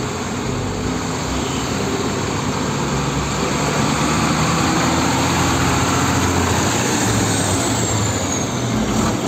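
Concrete mixer trucks' heavy diesel engines running as they drive slowly past amid road traffic: a steady low engine drone that grows a little louder around the middle.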